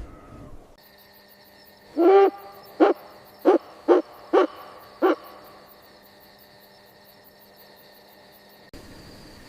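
Owl hooting: one longer hoot followed by five short hoots in quick succession, over a faint high chirping background.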